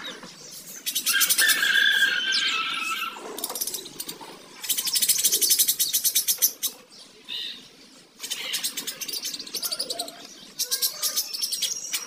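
A flock of budgerigars chattering in several bursts of fast, rattling chatter, with a few clear whistled notes in the first burst.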